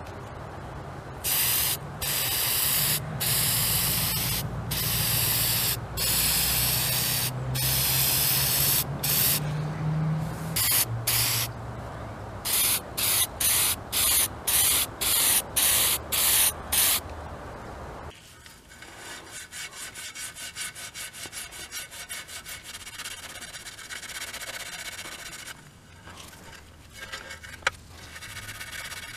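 Aerosol spray-paint can hissing in a long series of bursts as metal parts are sprayed black, the last bursts short and quick. After a cut about 18 s in, this gives way to a quieter, steady back-and-forth scrubbing of a pad rubbed by hand over a panel.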